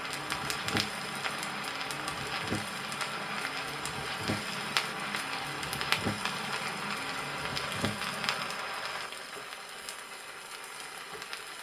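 Recorded heart sounds of a patient with mitral stenosis, heard over the pulmonary artery: low thuds repeating about every 1.7 seconds, the second heart sound split in two. They play under heavy vinyl crackle and hiss. The beats stop about nine seconds in, leaving only the record's surface noise.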